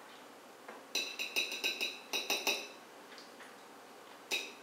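Metal spoon clinking and tapping against a plate while sour cream is knocked off it onto the latkes: a quick run of ringing clinks about a second in, another run about two seconds in, and one more near the end.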